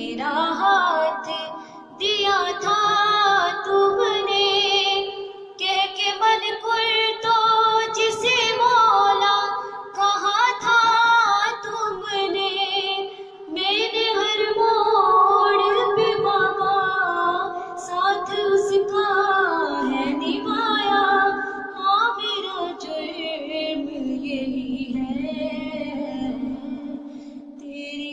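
A young woman singing a noha, a Shia mourning lament, solo and unaccompanied into a handheld microphone. Her voice glides through long ornamented phrases, with short breaks for breath between them.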